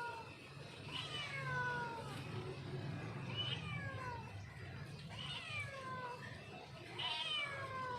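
Domestic mother cat meowing for her kitten: four drawn-out calls a second or two apart, each falling in pitch, over a low hum.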